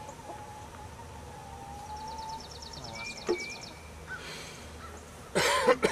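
Honey bees buzzing around the open hives, with a bird's rapid high trill of about ten notes a second around two seconds in. A short loud burst of noise comes near the end.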